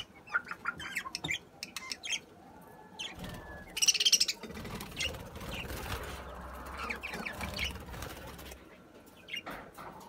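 A flock of budgerigars chirping and chattering in short, scattered calls, with a louder burst of chatter about four seconds in. Wings flap as some birds fly between the perches and nest pots.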